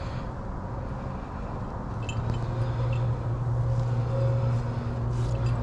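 A steady low rumble that grows louder about two seconds in, with a few faint light metallic clinks, like carabiners and gear on a climbing harness knocking together.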